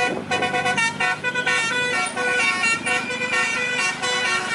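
Multi-tone 'telolet' bus horn playing a tune of held notes that change pitch every fraction of a second.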